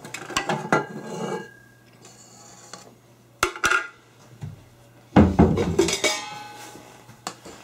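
Clinks and knocks of a stainless steel stand-mixer bowl being handled and lifted off its mixer, with a louder knock and some ringing about five seconds in.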